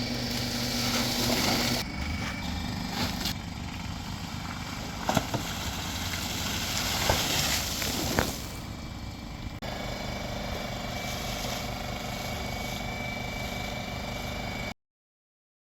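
Small engine running steadily, with a few sharp metal clanks in the middle. The sound cuts off abruptly near the end.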